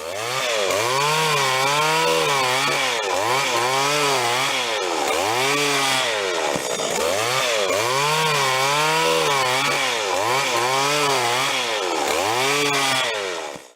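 Small two-stroke engine of a motorized oil palm harvester running at high revs, its pitch rising and dipping about once a second.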